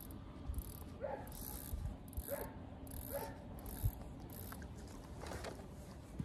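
Fishing reel being worked, its gear mechanism making short rasping clicks about every half second to a second, with a few dull knocks of handled tackle in between.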